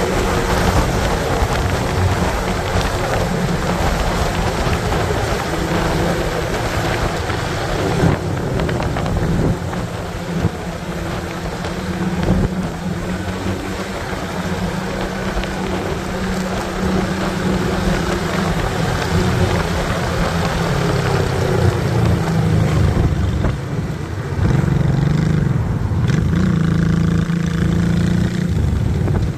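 Motorcycle on the move at road speed: wind rushing over the microphone behind the windscreen, with the engine running underneath and its note shifting in the second half.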